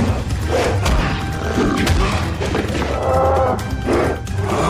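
Loud dramatic background music with a heavy low end and sharp percussive hits.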